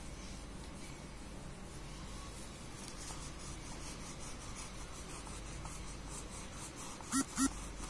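Brown wax crayon scrubbed back and forth on paper, repeated rubbing strokes that grow clearer a few seconds in. Near the end, two short pitched squeaks close together stand out as the loudest sounds.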